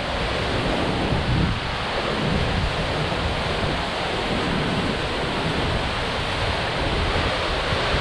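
A large waterfall, with water falling about 100 m, heard close up: a steady, loud rush of falling water. Spray-driven wind buffets the microphone with an uneven low rumble.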